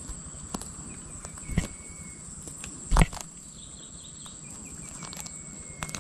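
Outdoor ambience with a steady high insect buzz. Twice, a run of short bird chirps ends in a held whistle, and a sharp thump about three seconds in is the loudest sound.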